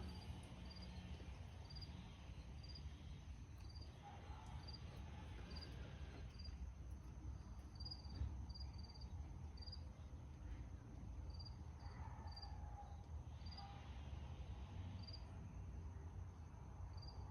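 Quiet: a cricket chirping in short, high-pitched chirps at irregular intervals over a low steady rumble, with a few faint soft handling noises.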